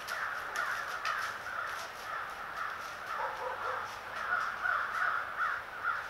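A flock of crows cawing, many calls overlapping without a break and growing louder over the last couple of seconds, with scattered light clicks in the first two seconds.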